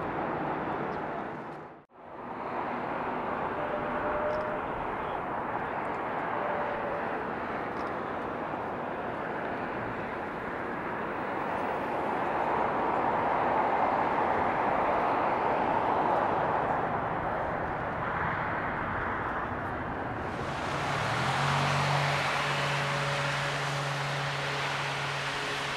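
Gulfstream G650's twin Rolls-Royce BR725 turbofans: a steady jet roar that swells to its loudest about halfway through and then eases off. It breaks to silence for a moment about two seconds in. Near the end the sound changes, with a low steady hum underneath.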